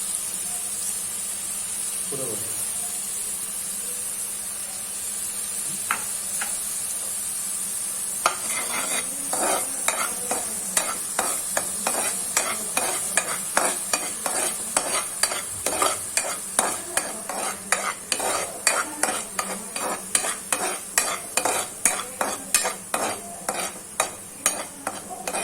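Ginger and garlic paste sizzling in hot ghee in a pan, with a steady frying hiss. From about eight seconds in, a spatula stirs it in quick scraping strokes, about two to three a second.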